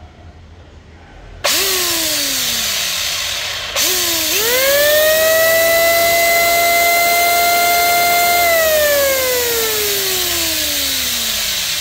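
Electric hand planer run on test. Its motor is switched on briefly and winds down, then switched on again: the whine rises to full speed, holds steady for a few seconds, and falls as the cutter head coasts down after the switch is released.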